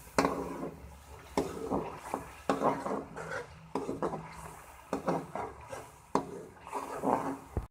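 Slotted spatula scraping and knocking against a wok while stirring chicken in a thick tomato paste: about a dozen short strokes at an irregular pace.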